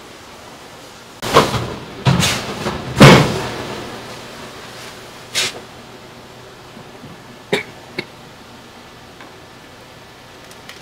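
A series of about six knocks and bangs of hard objects being handled. The loudest comes about three seconds in and fades out over about a second.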